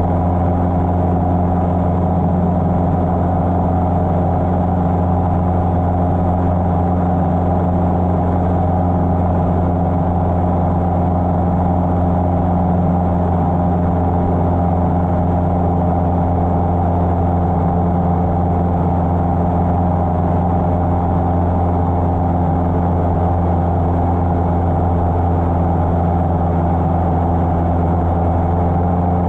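Cessna 150's four-cylinder Continental O-200 engine and propeller droning steadily in flight, with no change in pitch or power.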